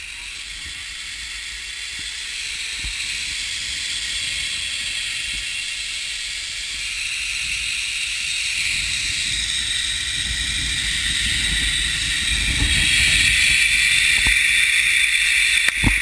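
Zip line trolley pulleys running along a steel cable: a steady whirring hiss that grows louder as the ride speeds up, with a faint whine that slowly rises and then falls in pitch. A sharp knock near the end as the trolley reaches the landing platform.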